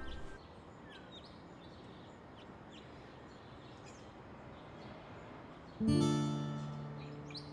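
Soft background score: a music cue fades out just after the start, leaving quiet room noise with a few faint high chirps. About six seconds in, an acoustic guitar chord is strummed and rings out, fading slowly.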